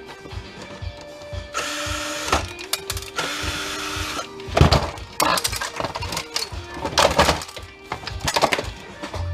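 A cordless drill-driver runs in two short bursts, backing screws out of a printer's circuit board, over background music. About halfway through, hard plastic and the loosened board clatter and knock several times as they are handled and pulled free.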